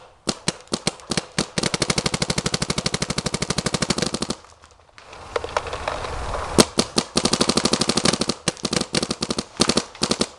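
Electronic paintball marker firing: a few single shots, then a fast even string of shots in ramping mode, a short pause about four seconds in, then more rapid strings and scattered single shots.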